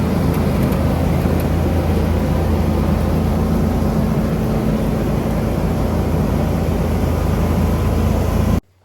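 Combine harvester's diesel engine running steadily, loud, with a strong low hum; it cuts off abruptly near the end.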